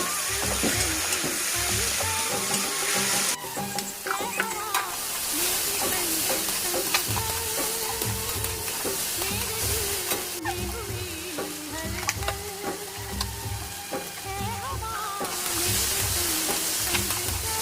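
Food sizzling as it fries in a pan, with a spatula or spoon stirring and clicking against the pan now and then. The sizzle eases for a few seconds about three seconds in and again partway through.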